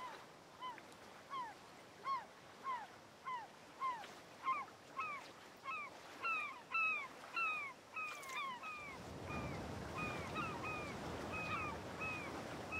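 A bird calling over and over, short arching cries repeated a little under twice a second and coming closer together in the middle. About nine seconds in, a steady outdoor rush comes up beneath the calls.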